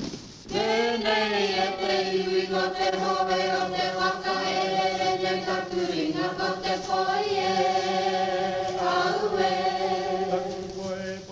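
Background music: long, held chant-like sung notes over a steady low drone, coming in about half a second in.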